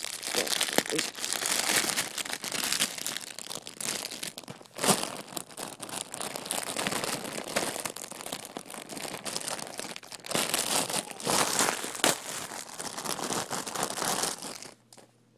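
Close rustling and crinkling handling noise right against the microphone, irregular and loud, cutting off sharply near the end.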